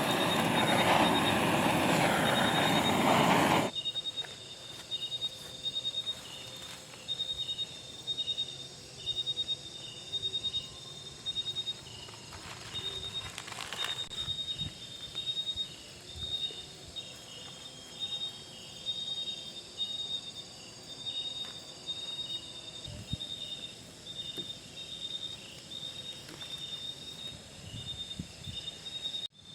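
A loud, steady rushing noise that cuts off suddenly about four seconds in, leaving insects chirping: a high, pulsing chirp repeated a little more than once a second.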